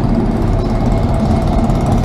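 Diesel-electric freight locomotives, a GE ES44AC followed by an EMD SD70ACe, passing close by under power: a loud, steady engine drone over deep rumbling from the train.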